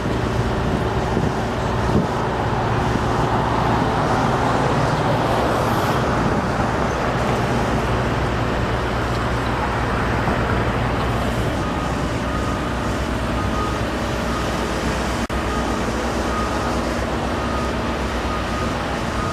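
Steady road traffic and engine noise, with a heavy engine's low hum through the first half. A faint, high, repeating beep sounds through the second half.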